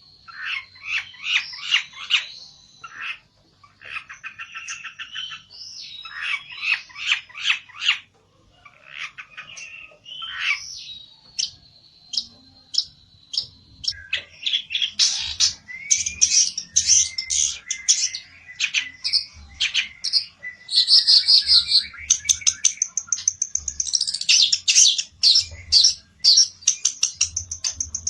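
A pelentet songbird singing agitatedly in rapid chirps, trills and harsh squawks, as if challenging a rival. The song comes in quick runs with short pauses and grows denser and louder about halfway through.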